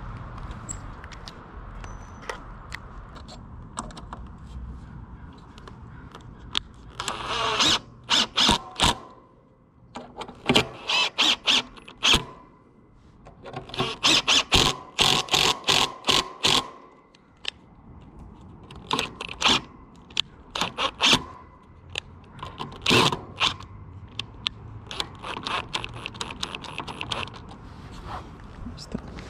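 Ryobi ONE+ cordless impact driver hammering screws into the wooden frame of a fence panel, in about six rattling bursts of a second or two each, with short pauses between screws.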